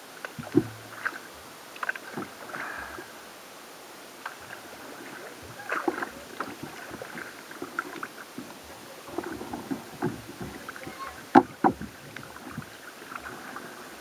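Double-bladed paddle stroking a sea kayak through calm water: irregular splashes and drips from the blades, with two sharper, louder splashes near the end.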